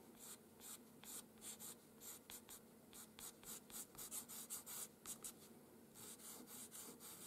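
Faint scratching of a pastel pencil's tip over paper in quick, short strokes, about three a second, laying in fine fur hairs.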